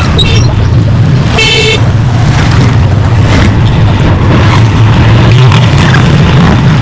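Street traffic with a motorcycle engine running steadily, and a short horn toot about a second and a half in.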